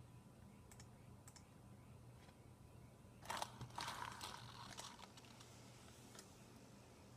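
Small hobby servo motor whirring through its gears for about a second and a half, starting about three seconds in, as it swings its arm to the unlocked position. There are a few faint clicks before and after it.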